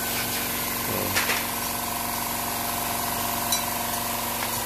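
A steady machine hum made of several held tones with a fine, even pulse underneath, with a few light tool clicks and a short scrape about a second in and again near the end.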